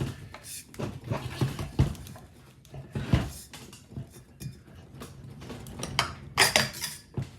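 Irregular metallic clinks and knocks as parts of a British Seagull outboard are handled and set down on the bench, the loudest run of clinks about six seconds in.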